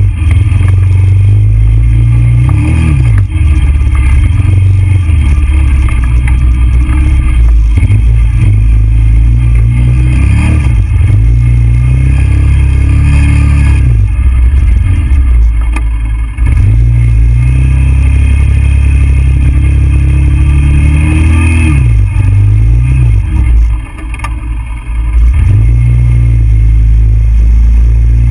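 TGB Blade 425 quad's single-cylinder four-stroke engine running loud under load, the revs rising and falling again and again as it is ridden, with a couple of brief dips in level late on.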